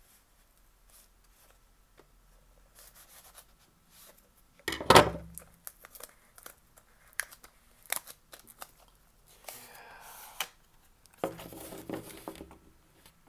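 Plastic shrink-wrap being cut and torn off small cardboard boxes, with crinkling and the boxes being handled, slid and knocked. A sharp knock about five seconds in is the loudest sound, with longer stretches of rustling near the end.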